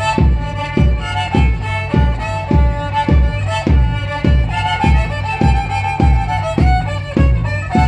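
Folk dance music: a violin melody over a steady deep beat, a little under two beats a second.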